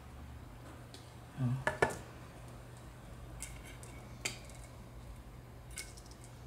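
Small clicks and taps of pliers and craft wire being handled during wire wrapping: a low knock and two sharp clicks about a second and a half in, then a few fainter scattered clicks, over a low steady hum.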